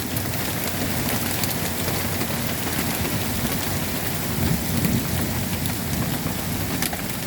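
Heavy rain pouring steadily, mixed with small pea-sized hail pellets, with a few sharp ticks standing out from the hiss.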